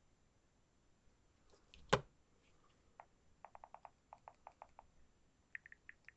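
Typing on a smartphone: runs of quick, light key clicks, about eight a second, with one sharper click about two seconds in.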